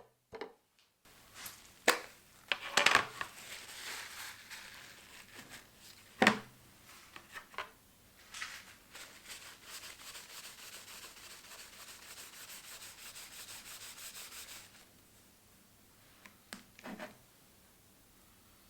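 Hand rubbing and scraping on wood in the workshop: a few sharp knocks in the first seconds, then a steady, even rubbing that stops abruptly about 15 seconds in.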